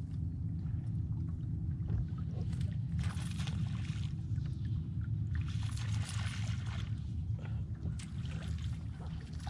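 Water splashing and hissing along a bass boat's hull in two stretches, over a steady low hum.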